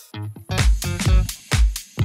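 Background music: upbeat disco-style electronic dance track with a steady kick drum about two beats a second. It dips briefly right at the start.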